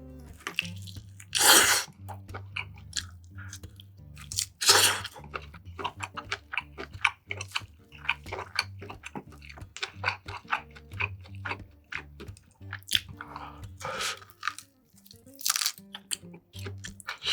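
Close-up chewing of food, wet and crunchy, with a few louder crunchy bites: the loudest come about a second and a half in and near five seconds, with more late on. Background music with a steady low bass line plays underneath.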